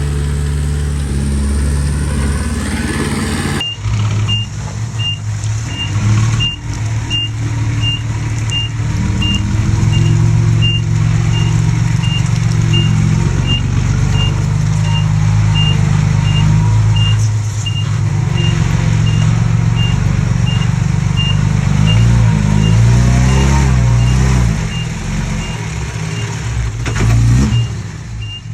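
Heavy diesel engine of a Komatsu D20P bulldozer running under load, its pitch rising and falling as it works. From about four seconds in, a reversing alarm beeps steadily, about one and a half beeps a second.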